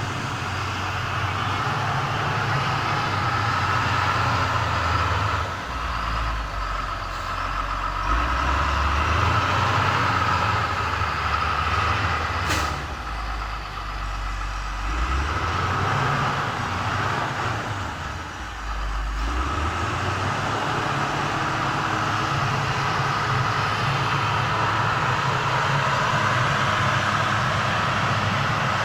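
A large engine running steadily, its low hum stepping up and down in pitch several times. One sharp click comes about twelve seconds in.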